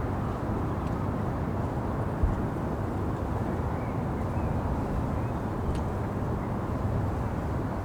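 Steady low rumble of city traffic ambience, with a brief low thump about two seconds in and a faint click near six seconds.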